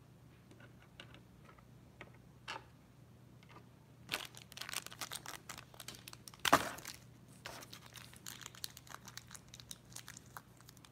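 Blind-pack pin packet torn open and crinkled by hand. A few faint crackles give way about four seconds in to a run of crinkling and tearing, with one sharp rip, the loudest sound, about halfway through, then lighter crinkling.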